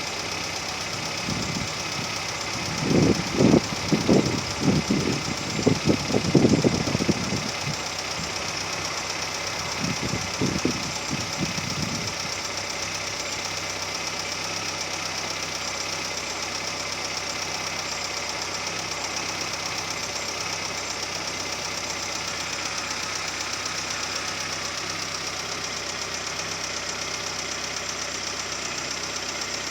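Volkswagen AP 1.6 inline four-cylinder engine idling steadily with a high-pitched hiss over the running. It has a strange noise at low revs that the owner has not traced: a rebuilt alternator with a new bearing, a new manifold, and a new timing belt and tensioner have not cured it. A few loud irregular low rumbles come in the first several seconds and again briefly about ten seconds in.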